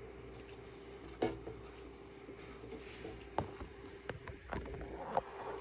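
Plastic 3D-printer filament being handled and pushed by hand into the printer's feed tube: light rubbing with a few scattered sharp clicks, over a steady faint hum.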